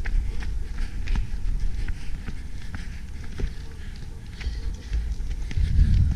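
Quick running footsteps on pavement, about three strides a second, over a low rumble that grows louder near the end.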